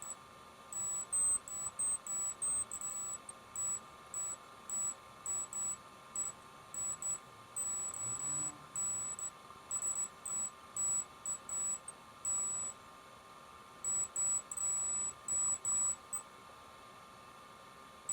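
Multimeter continuity beeper sounding in short, high-pitched beeps of uneven length, starting and stopping irregularly as the probes touch the pins of a re-soldered laptop FPC connector one after another: each beep marks a pin with continuity. A faint steady hum lies underneath.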